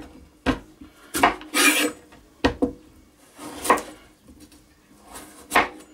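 Chef's knife paring the skin off a kohlrabi, in about six short cutting strokes at uneven intervals.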